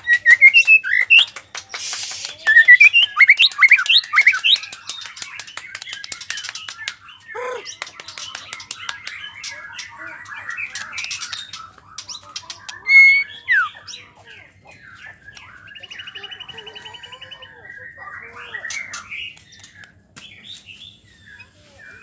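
White-rumped shama singing a varied song. It opens with loud quick runs of rising whistled notes, then goes on with chattering phrases, sharp clicks and a buzzy trill about sixteen seconds in. It is the kind of song played as a lure to get shamas that have stopped singing to sing again.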